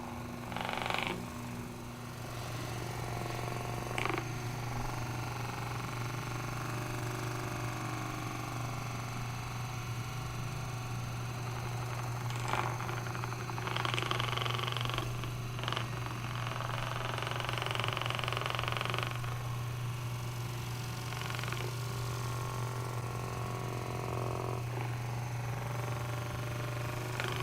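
Handheld electric massager running with a steady low buzz as it is worked over the muscles, with a couple of louder, brighter stretches past the middle.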